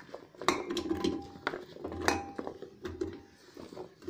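Chopped bottle gourd and tomato tipped from a steel bowl into an aluminium pressure cooker: a string of clattering knocks as the pieces and the bowl's rim hit the metal pot.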